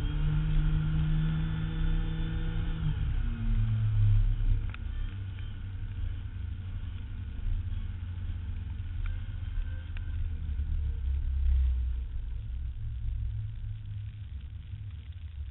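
A vehicle engine runs at steady revs, then drops in pitch about three seconds in, leaving a low rumble that carries on until the sound falls away at the very end.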